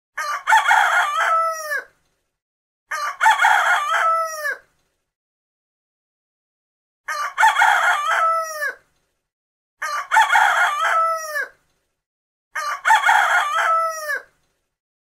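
Rooster crowing five times, each crow lasting under two seconds and ending in a drawn-out note that falls in pitch, with a short silence between crows.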